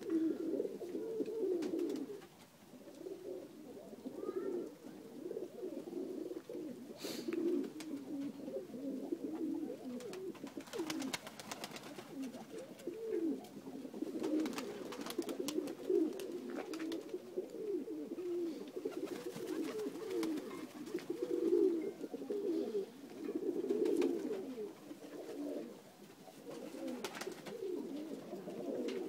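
A flock of Macedonian dönek pigeons cooing continuously, many birds overlapping, with a few brief sharp noises here and there.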